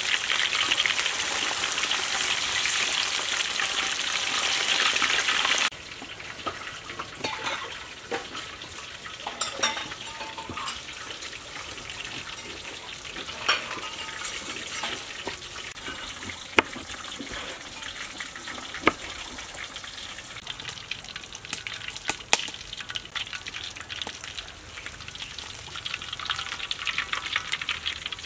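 Snakehead fish deep-frying in hot oil, a loud steady sizzle, which cuts off suddenly about six seconds in. After that comes a quieter stretch of scattered sharp taps of a knife on a wooden cutting board as limes are cut, and faint sizzling returns near the end.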